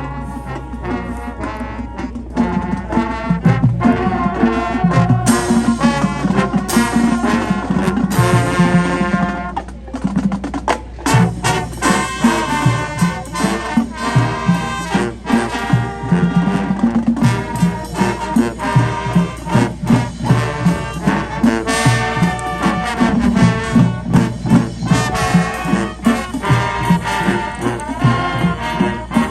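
High school marching band playing, with brass over a drumline. The music dips briefly about ten seconds in, then the full band comes back with strongly accented rhythmic hits.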